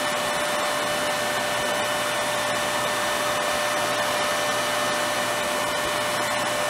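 Karstens universal cylindrical grinder running steadily, its grinding wheel spindle and workhead turning. It makes an even whir with a couple of steady tones, and the spindle sounds good.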